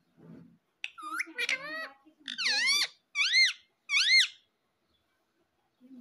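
Indian ringneck parrot vocalising: a run of squeaky, speech-like chatter, then a longer call and two short high calls that sweep up and down in pitch.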